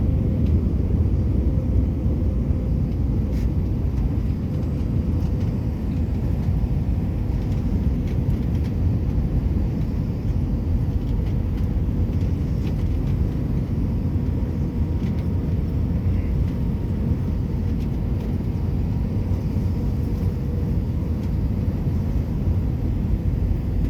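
Airliner cabin noise in flight: the steady low rumble of jet engines and airflow, with a faint steady whine.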